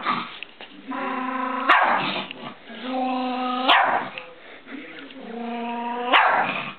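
Small dog giving three drawn-out whining barks about two seconds apart, each a held whine that rises at the end into a sharp bark, directed at another dog lying in its pet house.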